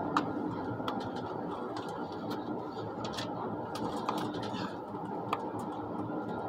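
Steady running noise of an ICE high-speed train heard from inside the passenger car, a constant rush with a low hum, dotted with irregular light clicks and ticks.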